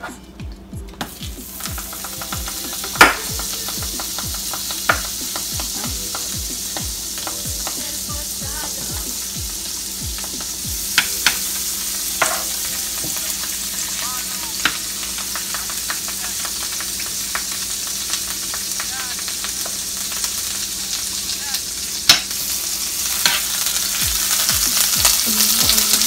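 Butter sizzling steadily in a hot pan as it melts for the next batch of pancakes, with a few sharp knocks of kitchen utensils. The sizzle grows louder near the end.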